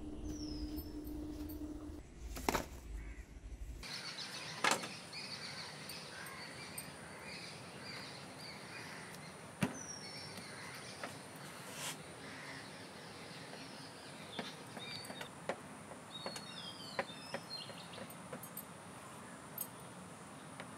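Outdoor ambience with small birds chirping now and then and scattered sharp clicks and knocks of kitchen work at a stone counter, as a knife cuts through a ball of parotta dough. A low steady hum in the first few seconds cuts off about four seconds in.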